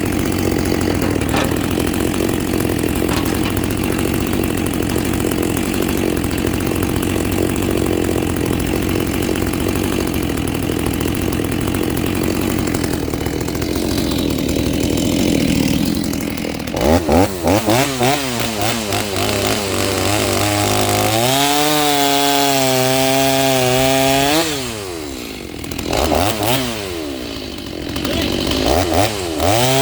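Stihl MS 390 two-stroke chainsaw, rebuilt with a Hipa cylinder kit, cutting through a log under load for about 16 seconds. It then comes out of the cut with several quick throttle blips, revs freely at full throttle for a few seconds, drops back toward idle and revs up again near the end.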